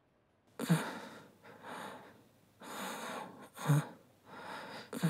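A man gasps sharply about half a second in, then keeps breathing hard in ragged gasps roughly once a second, some with a catch in the throat: the laboured breathing of someone coming round after fainting in a panic attack.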